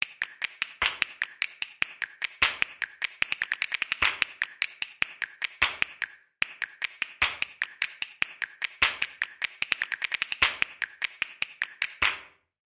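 A rapid, irregular string of sharp clicks or taps, in two runs of about six seconds each with a short break between them.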